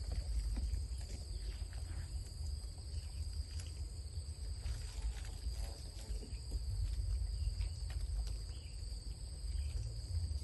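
Steady high-pitched insect chorus from the surrounding vegetation, over a louder low rumble and a few faint clicks.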